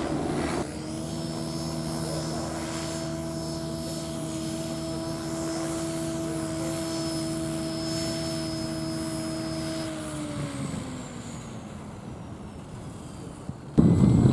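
Radio-controlled model helicopter hovering: a steady droning hum with a faint high whine, which drops in pitch and fades about ten seconds in. Near the end a sudden loud rush of noise cuts in.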